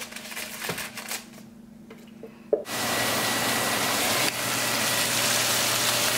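A few light clicks of tongs against a metal sheet pan. Then, about two and a half seconds in, a blender starts suddenly and runs loud and steady with a low hum, pureeing butternut squash into sauce.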